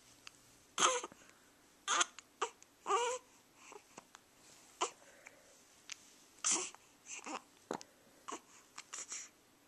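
A baby with hiccups fussing and crying in short bursts about a second apart, with sharp hiccups in between.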